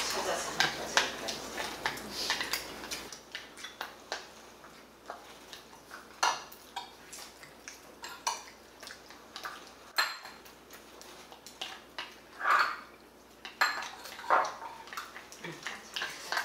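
Metal spoon clinking and scraping against a ceramic rice bowl while eating, in short irregular clicks with a few louder knocks.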